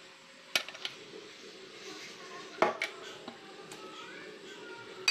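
Kitchenware clinking: about five sharp knocks of metal utensils and a steamer pot against a glass convection-oven bowl and its wire rack, the loudest about halfway through.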